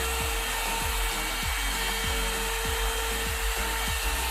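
One-step hot-air brush (hair dryer and styler) running steadily, a constant blowing hiss with a motor whine.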